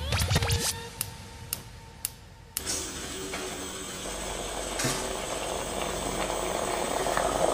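A few sharp clicks and clinks of a moka pot being handled on a gas stove. Then, about two and a half seconds in, a steady hiss sets in from the lit gas burner. It grows fuller as the moka pot begins to gurgle with coffee rising into its top chamber.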